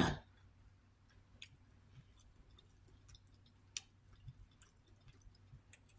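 Faint eating sounds: a few scattered light clicks and taps of a fork against a plate as food is cut and picked up.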